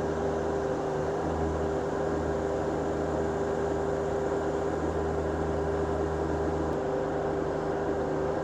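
TYM T25 compact tractor's diesel engine running at a steady speed, a constant even hum with no knocks or changes.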